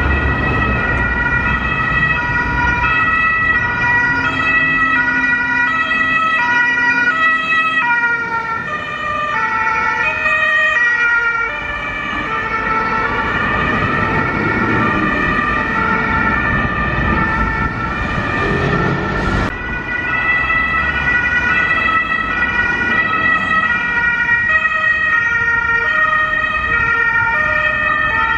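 German two-tone emergency sirens (Martinshorn) of fire-brigade vehicles on an emergency run, several sounding out of step at once, over passing vehicle engines. About two-thirds through the sound changes abruptly to the two-tone siren of an unmarked police car.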